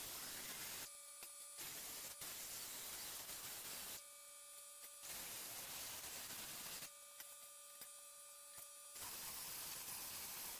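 Cutoff-wheel grinder cutting the sheet-steel windage tray of an LS engine, heard faintly as a steady hiss. Twice it drops back to a thin steady whine between cuts.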